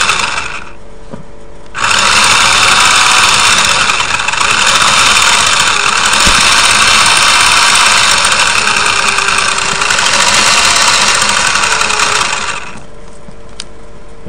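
Small electric drive motor of a radio-controlled Porsche model car running at high throttle under PWM control. It stops about half a second in, starts again about two seconds in, runs steadily for about ten seconds, and cuts off near the end.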